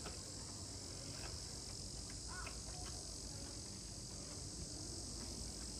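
A steady, high-pitched insect drone, with a few faint irregular clicks from a polar bear chewing on a whole salmon.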